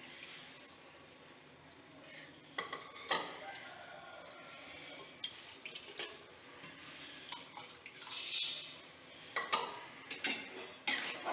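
Water poured from a ceramic bowl into an aluminium pressure cooker of rice and chicken, a steady splashing hiss at first. Then scattered sharp clinks and knocks of kitchenware, the loudest near the end.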